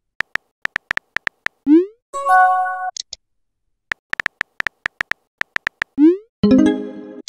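Chat-app sound effects: a run of quick keyboard tap clicks, then a short rising swoop and a brief synthesized chime as a message goes through. The typing clicks, swoop and chime come round a second time.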